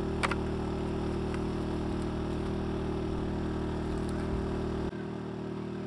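Portable generator running steadily with an even engine hum. There is a light knock shortly after the start, and the lowest part of the hum drops away near the end.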